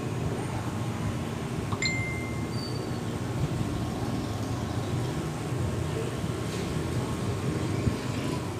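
Electric tattoo machine buzzing steadily as it works the skin during lining. A single brief high metallic ping sounds about two seconds in.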